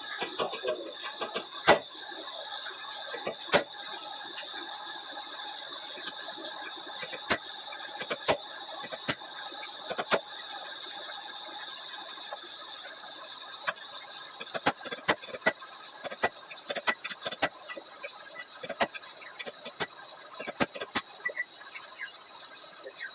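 Scattered sharp metallic clicks and taps of tools and parts being handled during motorcycle CVT work, coming more often in the second half, over a steady high-pitched background hiss.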